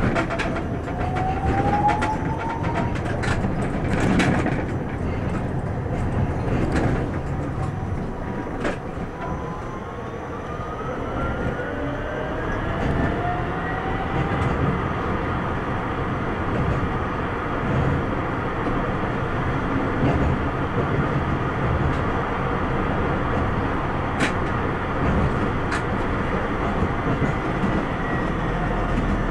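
Tram running on its rails, heard from the driver's cab, with the electric traction drive whining and rising in pitch as it picks up speed. The whine holds steady at speed and begins to fall near the end as the tram slows for a stop. Sharp clicks and knocks of the wheels over rail joints and points come through the first several seconds, over a steady rumble.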